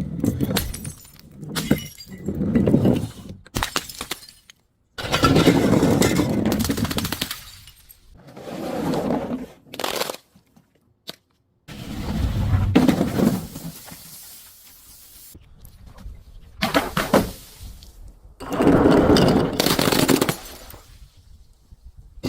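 Objects being crushed and breaking: a series of loud crunching bursts, each a second or two long, separated by short gaps, several of which cut off abruptly.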